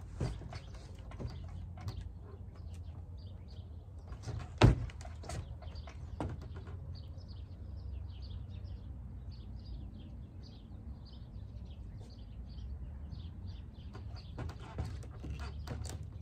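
Small birds chirping faintly over a steady low background rumble. One sharp knock sounds about four and a half seconds in, followed by a few fainter clicks.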